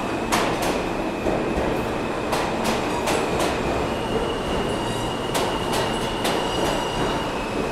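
New York City subway M train cars rolling along a station platform. The wheels click over rail joints in quick pairs and fours, over a steady rumble and a thin, steady high squeal.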